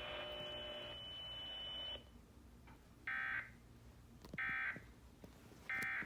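Emergency Alert System end-of-message (EOM) data tones: three identical short bursts of digital data tones, each under half a second, about 1.3 seconds apart, closing the Required Monthly Test. Before them, a steady noisy sound with a thin high tone from the receiver cuts off about two seconds in.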